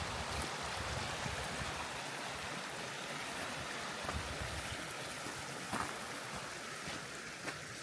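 River water rushing steadily, with a few faint clicks about six and seven and a half seconds in.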